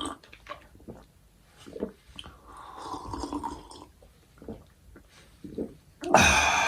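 Close-up mouth sounds of eating: wet chewing, smacking and slurping clicks. Near the end comes a loud breathy rush of sound.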